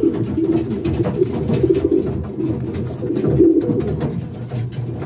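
Racing pigeons cooing, a continuous low cooing with no break.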